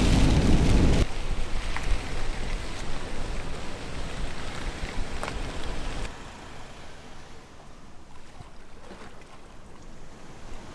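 Road and wind noise of a camper van driving in rain: a loud low rumble for about the first second, then a steadier hiss that drops quieter about six seconds in.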